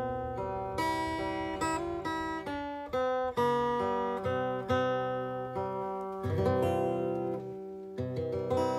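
Acoustic guitar played solo in the song's closing instrumental bars: slow chords struck about once a second and left to ring, with a last chord shortly before the end.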